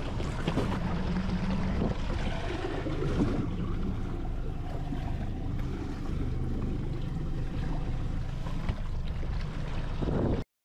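Wind buffeting the microphone over water sloshing against a small boat's hull at sea: a steady rushing noise, heaviest in the bass, that cuts off abruptly near the end.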